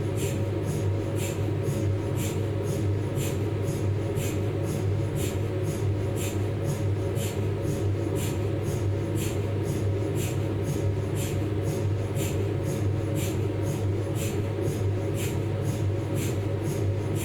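Philips 1.5 T MRI scanner's gradient coils tapping rhythmically, about two pulses a second, over a steady low hum, during the planning and shim stage of a cervical spine exam.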